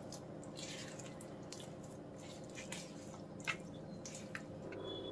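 Faint wet squelches and soft ticks of thick chocolate cake batter being stirred by hand in a bowl, coming irregularly over a low steady hum.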